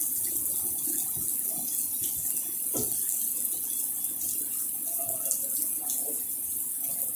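Heavy rain pouring onto a flooded asphalt parking lot, a steady, even hiss of drops splashing on wet pavement and standing water.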